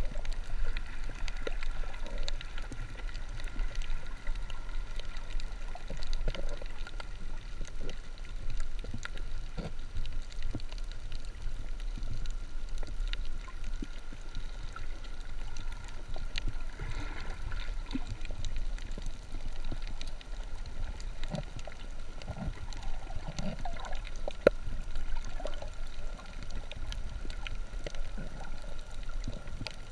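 Underwater ambience heard through a camera's waterproof housing: a steady low rumble with scattered faint clicks and crackles, and a faint steady whine.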